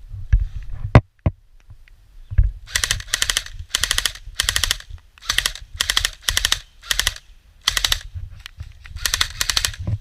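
Airsoft guns firing on full auto: about a dozen short, rapid bursts, starting about three seconds in. A few single sharp knocks come before them.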